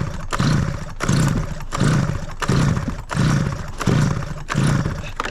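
Stihl 009L chainsaw being pull-started: about seven quick, even pulls on the recoil starter, each a rasping whir of the engine turning over without catching.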